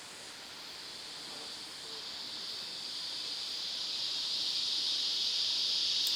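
Insects chirring in a steady high-pitched drone that grows gradually louder.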